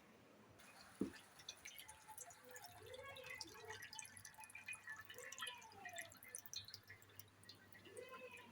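Faint, irregular dripping of water leaking in an LG double-door refrigerator, with one sharper knock about a second in.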